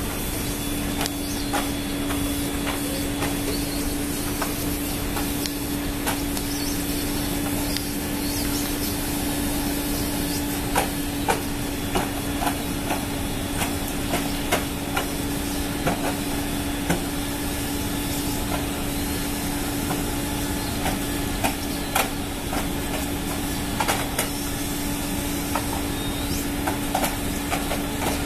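Steady machinery noise with a constant hum running through it and scattered sharp clicks and knocks at irregular intervals, more frequent in the second half.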